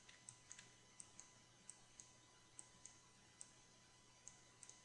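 Faint computer mouse clicks, about a dozen, irregularly spaced, over a low steady hum.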